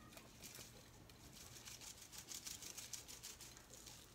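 Grated Parmesan cheese being shaken from a shaker container onto the food: a faint, rapid patter of light ticks that stops about three and a half seconds in.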